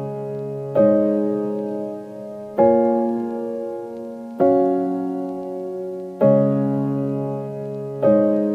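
Background music of slow piano chords, a new chord struck about every two seconds and left to ring out.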